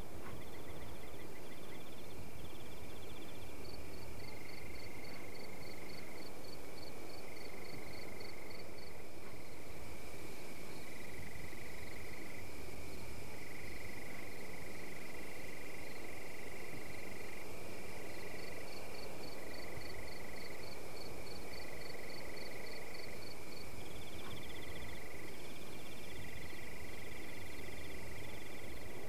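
A chorus of calling animals: several fast pulsing trills at different pitches that start and stop again and again, over a steady background hiss.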